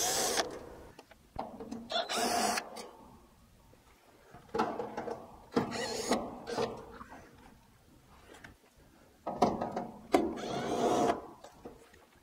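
20-volt cordless drill spinning in several short bursts as it drives screws on an air-conditioner condenser's sheet-metal casing, with a longer run of about two seconds near the end.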